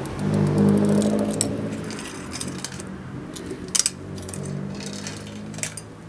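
Light metallic clinks of a bicycle chain being handled at the rear derailleur, the sharpest about two-thirds of the way through, over a steady low tone that slowly fades.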